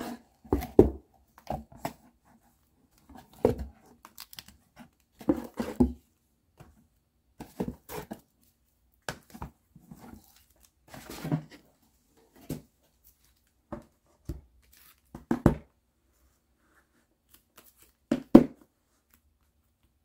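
Shrink-wrapped music albums being handled, lifted out of a cardboard box and set down: irregular bursts of crinkling and rustling with scattered knocks, the loudest near the end.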